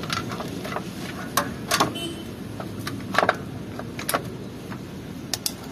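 A truck engine running steadily, with a handful of sharp clicks and knocks over it.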